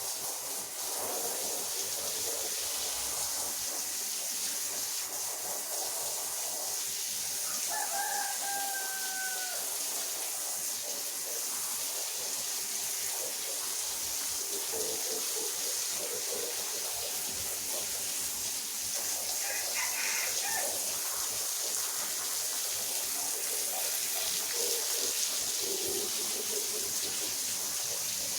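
Steady wet swishing hiss of a rotary polisher brush scrubbing a soaked carpet, with a short falling call from a bird about eight seconds in.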